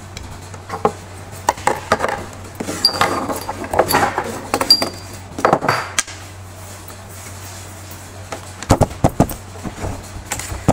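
Clicks, taps and clinks of a small electric motor's finned housing and parts being handled and worked on with a screwdriver during reassembly, in clusters through the first six seconds and again briefly near the end, over a faint steady low hum.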